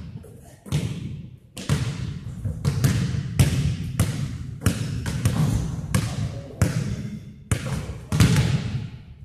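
Basketballs bouncing on a gym floor: a string of sharp, irregular thuds about one every half second to a second, each echoing in the large hall.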